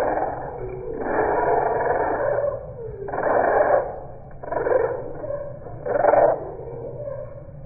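Budgie sounds at the bird bath played back in slow motion, pitched right down into deep, drawn-out bursts: a long one near the start, then three shorter ones, the last about six seconds in.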